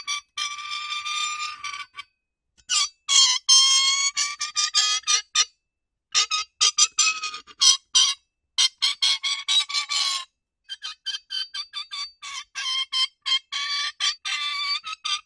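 Metal rubbing on metal, squeaking and screeching in a high pitch, sometimes as rapid chattering squeaks and sometimes as longer drawn-out squeals, with short pauses between passes.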